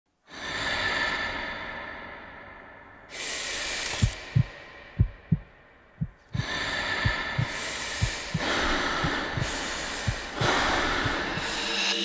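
Slow, deep breaths, each a long swell of rushing air, with a low heartbeat thudding in double beats about once a second from about four seconds in.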